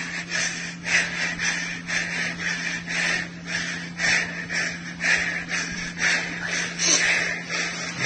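A child's quick, labored breathing, two or three noisy breaths a second, over a steady low hum.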